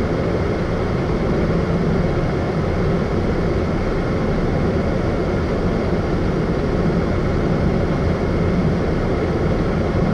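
Semi-truck's diesel engine running steadily, a constant low rumble heard from inside the cab.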